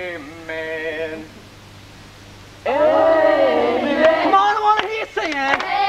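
One voice sings long held notes. Then, about two and a half seconds in, a whole group of voices joins in loud singing together.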